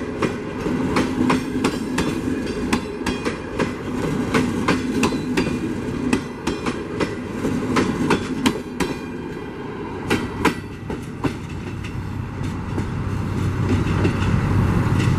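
CNR passenger coaches rolling past, their wheels clicking rapidly over the rail joints. The clicks thin out about ten seconds in, after the last coach has passed. Near the end a low, steady rumble rises and becomes the loudest sound.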